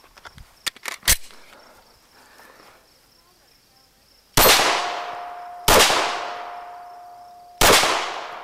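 Three 9mm pistol shots from a Smith & Wesson M&P, the first about halfway through, the next a second and a half later and the last two seconds after that, each with a long fading ring. A few light clicks and a sharp knock come just before, in the first second.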